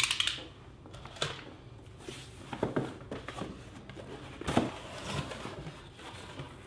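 Cardboard and paper packaging being handled in a headset box: a sharp crinkle at the start, then scattered taps and rustles, the loudest about four and a half seconds in.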